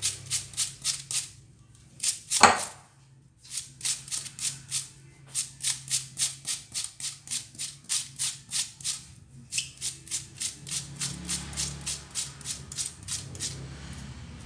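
Peeled onion being shredded on a handheld plastic julienne grater with metal teeth: quick rasping strokes, about four to five a second, with short pauses near three seconds and nine and a half seconds in. One louder stroke about two and a half seconds in.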